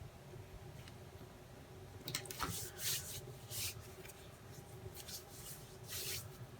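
Hands handling small cardboard and paper model-rocket parts: a handful of short rustling, rubbing sounds starting about two seconds in, over a faint steady room hum.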